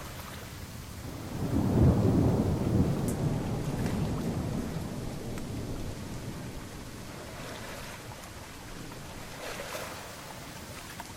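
A single roll of thunder: a low rumble swells about a second and a half in, peaks quickly and dies away over several seconds, over a steady hiss of rain.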